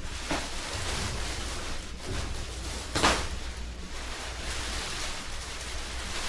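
Packaging being handled and pulled off a new rolling tool cabinet: a steady rustling hiss, with one sharp, loud noise about three seconds in.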